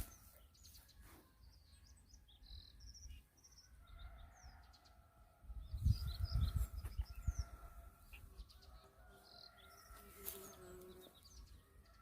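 Small birds, likely sparrows, chirping in short scattered calls over a faint steady hum, with a stretch of low rumbling about six seconds in.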